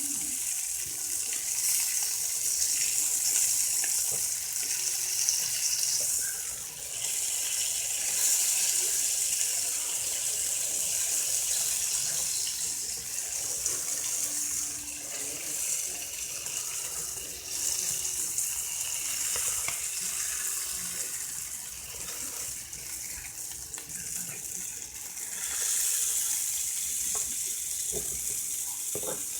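Catfish fillets frying in butter in a hot pan: a steady sizzling hiss with small crackles and pops.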